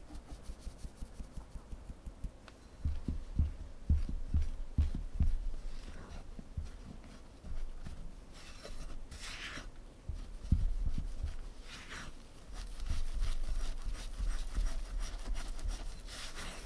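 A metal mesh sieve tapped about five times a second as flour and powders are sifted into a glass bowl. Then a silicone spatula stirs the powdery mix in the glass bowl with soft thuds and short scrapes against the glass.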